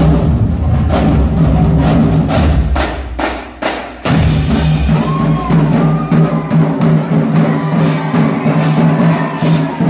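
Marching drumline playing a loud cadence on snare drums, bass drums and crash cymbals. About three seconds in the playing drops away briefly, then the full line crashes back in about four seconds in.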